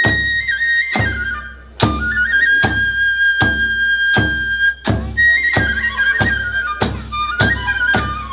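Kagura music: a bamboo transverse flute (fue) playing a high, sustained melody with quick ornamental turns over regular drum and cymbal strikes about one a second, which come closer together near the end.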